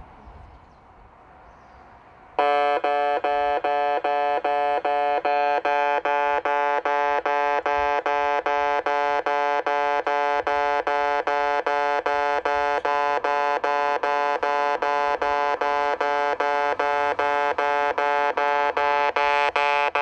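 In-station railway level crossing warning signal starting up about two seconds in: a chime-like alarm tone repeating at an even beat of about two and a half strokes a second, warning that a train is approaching.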